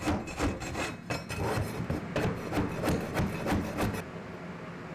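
Long-handled floor scraper rasping over a wooden subfloor as carpet pad is cleared, in quick repeated strokes about three a second. The scraping stops about four seconds in, leaving a faint steady hiss.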